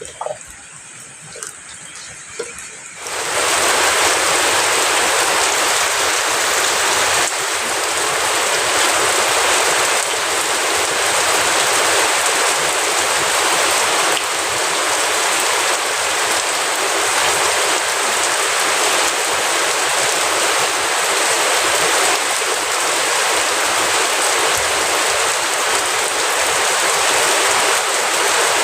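Steady heavy rain, a dense even hiss that comes in suddenly about three seconds in; before that, a quieter stretch with a few faint ticks.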